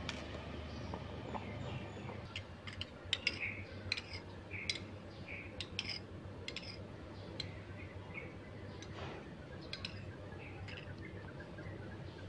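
Thick pumpkin and sago pudding simmering in an electric pot, giving scattered faint pops and clicks, with short high chirps among them.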